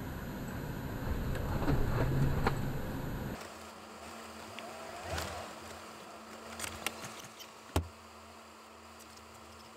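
Off-road vehicle's engine running at a low, steady rumble, then cutting out abruptly about a third of the way in. After that only faint knocks remain, with one sharp knock near the end.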